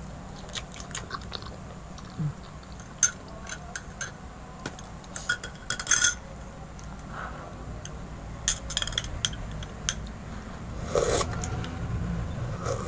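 Light clinks and taps of a glass of tea with a metal spoon standing in it as it is picked up and handled over a plastic plate, loudest in a cluster about six seconds in, with scattered softer taps over a steady low background rumble.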